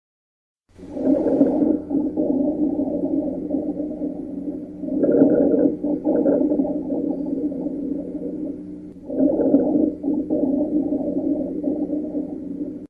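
Stethoscope recording of breathing overlaid by a continuous, musical, low-pitched moaning of several tones: an abnormal continuous lung sound of the wheeze and rhonchus kind, typical of narrowed airways. It starts after a short silence and swells three times, about four seconds apart, with each breath.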